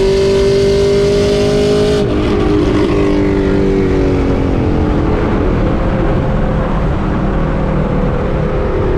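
Car engine running loud at high revs. About two seconds in the sound suddenly goes duller, and the engine note then falls slowly for several seconds before creeping back up near the end.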